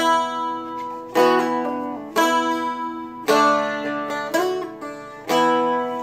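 Seagull Merlin, a four-string dulcimer-style instrument, strummed with a pick. It plays the song's intro chord pattern, about one strum a second, each chord left to ring and fade.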